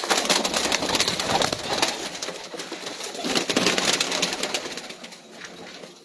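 Domestic pigeons in a loft: a busy rustle of wing flapping with cooing. It is loud for the first four seconds or so, then fades.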